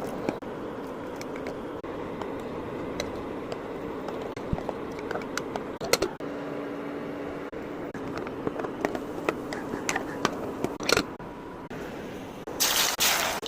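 Kitchen cooking sounds: a steady background hiss with scattered clicks and taps, and a brief louder rush of noise near the end.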